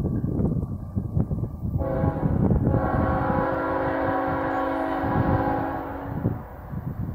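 Multi-chime air horn of the approaching CSX freight's lead GE ET44AH locomotive, sounding one long blast of about four seconds. The blast starts thin and fills out to the full chord about a second later. Gusty wind buffets the microphone throughout.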